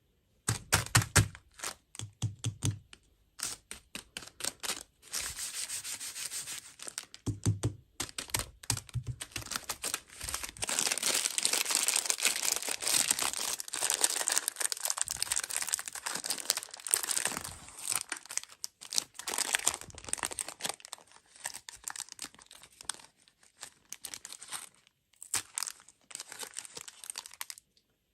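Plastic food packaging being crinkled and torn open, with dense rustling and many sharp crackles. A few knocks from handling come near the start and again about eight seconds in.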